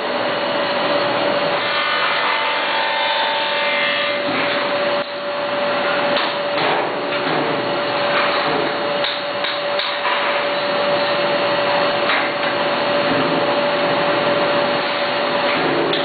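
Perfect binding machine running: a steady motor hum at one constant pitch under a rasping, scraping noise as the clamped book block is carried through, with several clunks along the way.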